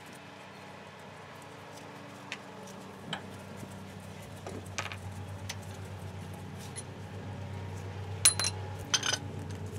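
Metal tools and brake parts clinking and tapping as they are handled at a truck's front brake caliper, with two sharper clinks near the end. A low steady hum runs underneath from about 3 seconds in.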